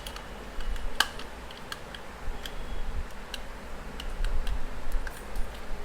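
Small plastic clicks and taps as the parts of a computer mouse are handled and fitted back together: scattered sharp ticks, the clearest about a second in, over low handling rumble.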